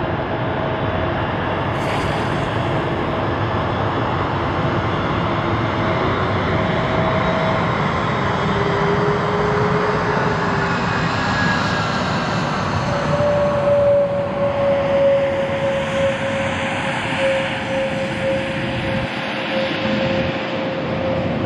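Jet airliner's engines as the plane passes: a steady rush of engine noise with high whining tones, one of which comes in strongly about halfway through and slowly falls in pitch.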